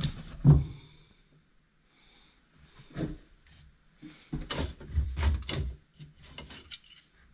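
Handling knocks on a wooden slatted shelf as a thermostat unit and hand tools are picked up and put down. There is a thump about half a second in, a single knock about three seconds in, then a run of rattling knocks and clatter between about four and six seconds.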